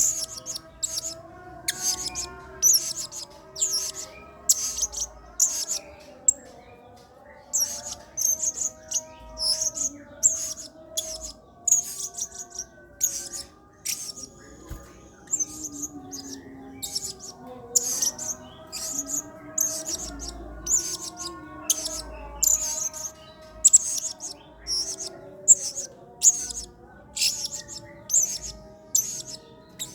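Blue-crowned hanging parrot (serindit) calling vigorously: a rapid series of short, sharp, high chirps, about two a second with brief pauses, over a fainter wavering lower tone.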